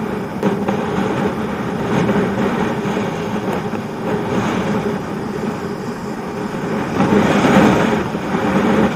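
Wind rushing over the camera microphone together with bicycle tyres rolling on asphalt during a downhill ride on an e-bike: a steady rushing noise that grows louder about seven seconds in.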